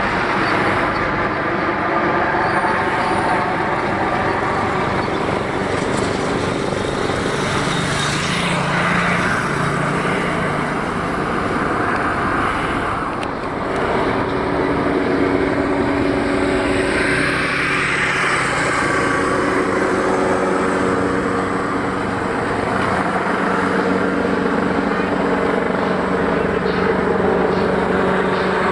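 Military helicopter flying overhead: a steady rotor and turbine drone whose pitch changes partway through as it moves across the sky.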